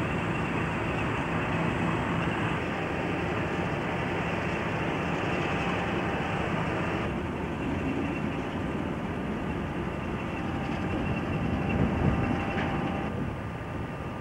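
Steady low rumble and hiss of rail depot background noise, changing abruptly at an edit about seven seconds in.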